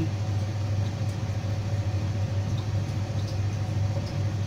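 A steady low mechanical hum over an even background noise, unchanged throughout.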